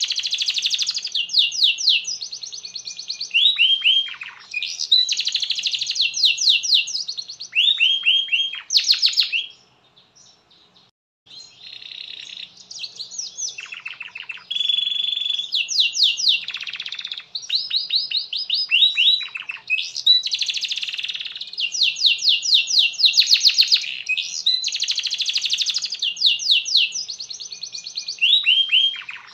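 Domestic canary singing a long, fast song of rapid rolled trills and sweeping downward-sliding notes. It pauses for about two seconds a third of the way in, then carries on.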